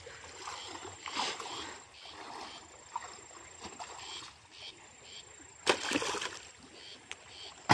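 Shallow stream water splashing and sloshing as a person wades through it around a car's wheel, with a louder splash about six seconds in and a sharp knock near the end.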